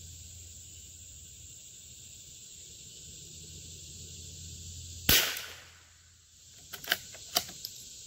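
A single shot from a Howa M1100 .22 LR bolt-action rifle about five seconds in, sharp with a short ringing tail. It is followed by a few quick clicks as the bolt is worked while the rifle fails to feed the next round. A steady high insect buzz runs underneath.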